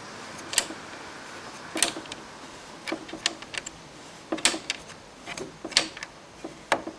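Irregular sharp clicks and taps, a dozen or so, from a plastic door-hinge routing template and its clamp being positioned and tightened on the door edge.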